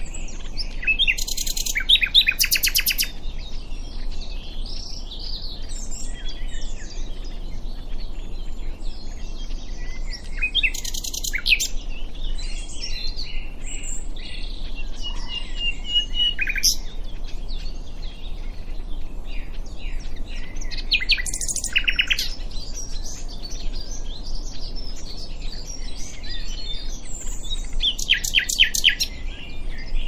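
Common nightingale singing: four loud phrases of rapid repeated notes, spaced several seconds apart, with quieter varied warbles and whistles between them.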